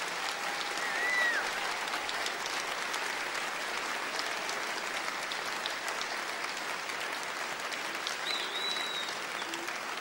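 Concert hall audience applauding steadily, a dense patter of many hands clapping, with two brief high whistles, one about a second in and one near the end.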